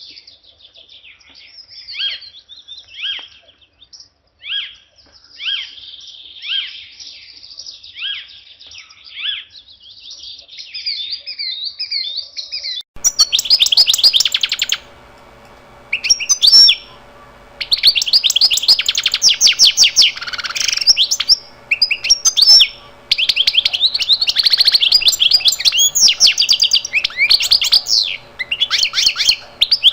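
Birds chirping: repeated short falling chirps at first, then, a little before halfway, a sudden switch to louder, rapid chirping and trilling over a faint steady hum.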